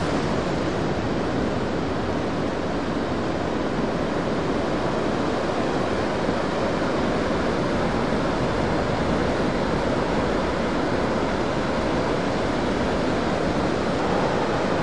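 Big ocean surf from a large swell breaking along the beach: a steady, even roar of breaking waves and rushing whitewater.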